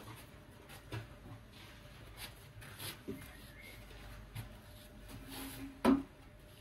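A few footsteps and scattered knocks of tools and materials being handled, the loudest a sharp knock about six seconds in.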